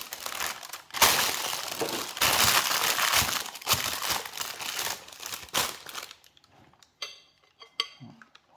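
Loud crinkling and crunching as a dry mixture of ground beef and beef dripping is handled and pressed, busiest from about a second in until about six seconds, then a few light clicks.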